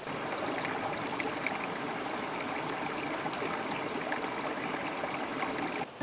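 Mountain stream flowing steadily, a continuous rush of water that cuts off just before the end.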